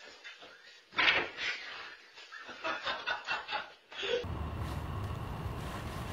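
A man laughing in short breathy bursts. About four seconds in the sound switches abruptly to a steady low rumble.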